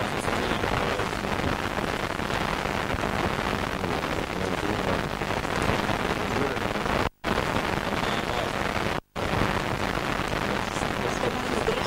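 Steady hiss with a faint low hum, the noise of a blank, unrecorded stretch of old videotape. It cuts out abruptly twice for a moment, about two seconds apart, past the middle.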